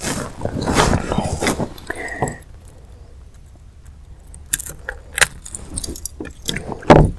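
Metal clinking and rattling as long-nose pliers work a lure's hooks out of a fish's mouth, busiest in the first couple of seconds, then a few scattered clicks and one short louder knock near the end.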